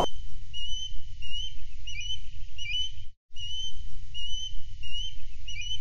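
Osprey calling: a series of short, high whistled notes, some flicking upward at the end, over a steady low rumble. The calling breaks off briefly about three seconds in, then the same run of notes starts again.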